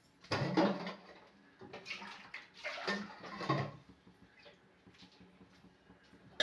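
Water poured into a pan of tamarind fish-curry broth, in about three pours over the first three and a half seconds.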